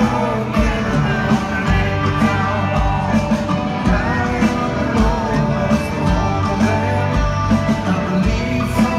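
A rock band playing live: bass, drums and guitar, with a male lead voice singing into a microphone.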